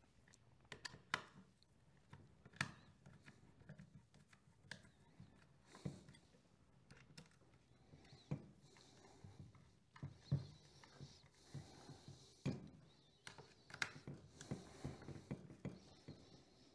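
Faint, irregular clicks and taps of a screwdriver and Allen key working the screws of a plastic gear cover being fitted back onto a Jetsurf engine.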